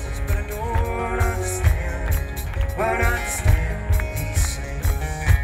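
Live band music: a lap slide guitar playing sustained notes with sliding pitch glides over a steady kick-drum beat.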